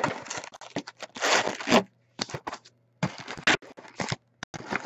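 Wrapped trading-card packs being handled and stacked and a cardboard box being emptied by hand: irregular bursts of rustling, crinkling and scraping with a few sharp clicks.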